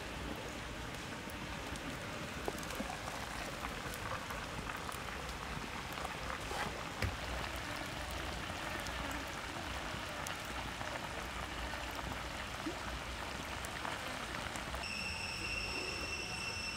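Chicken soup boiling in a pot over a wood fire: a steady bubbling hiss with small crackles and snaps from the fire. Near the end a steady high-pitched whine starts.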